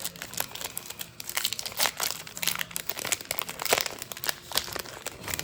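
Plastic card packaging crinkling and rustling in the hands, a dense run of small irregular crackles.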